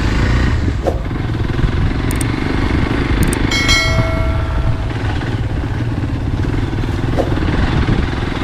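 Motorcycle engine running steadily as the bike rides along a rough dirt trail, with a few light clicks and a short high-pitched tone about three and a half seconds in.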